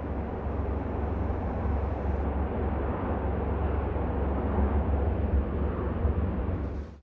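Steady rumbling noise with a hiss, with no distinct knocks or clanks, cut off suddenly at the very end.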